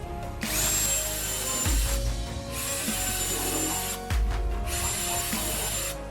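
A small power tool working wood, in two spells of about two seconds each: a rough rasping noise with a thin, steady high whine. Background music with a low beat plays underneath.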